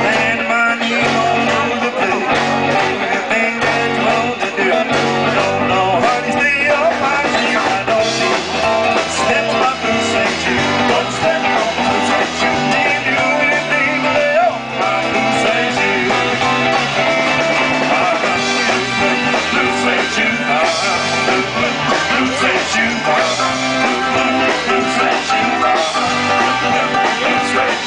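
Live band playing upbeat rock-and-roll style music with guitar and a bass line.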